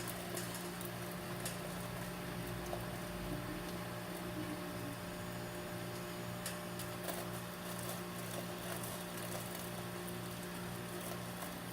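A steady low mechanical hum that pulses a few times a second, with a few faint clicks and taps.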